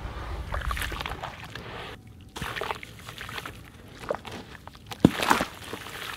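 Hands sloshing and swishing through a basin of gritty water, then crumbling a wet, sandy block so that grit and pieces splash and patter into the water, with a sharp knock about five seconds in.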